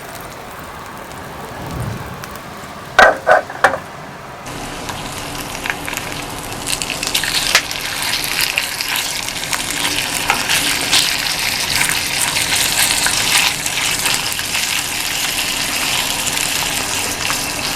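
A sausage frying in a pan on a gas stove: a steady sizzle that sets in about four seconds in and grows louder. Just before it, three sharp knocks.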